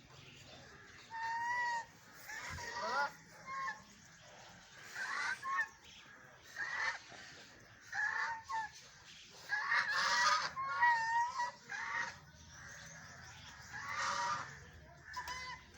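Ducks quacking at feeding time, a run of short, nasal calls one after another, with some overlapping calls around the middle.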